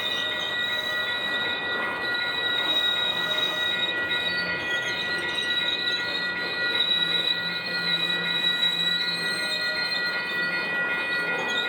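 Freight train cars rolling past, their steel wheels squealing in several steady high tones, the highest of them wavering, over the rumble of the train.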